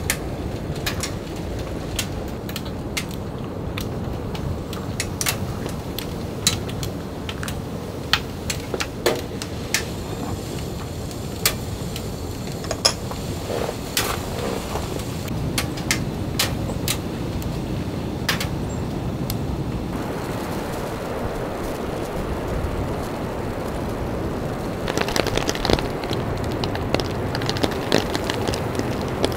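Steady rain on the tent fabric, with irregular sharp pops and crackles from wood burning in a small stove through the first two-thirds. About 25 seconds in the rain becomes louder and hissier.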